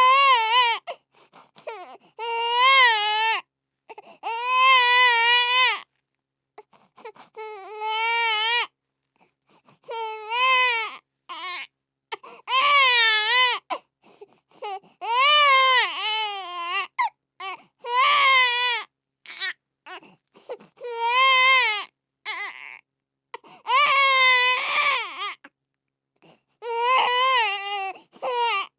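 Infant crying: a run of about a dozen loud, wavering wails, each one to two seconds long, broken by short gasping pauses for breath.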